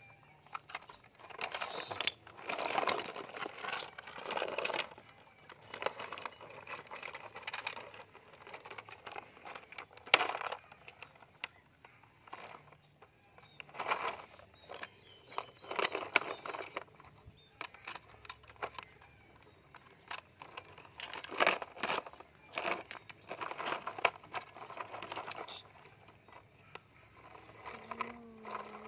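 Broken brick chunks clattering and scraping against each other and against the plastic bed of a toy dump truck as they are handled and loaded, in irregular bursts of knocks with quieter gaps between.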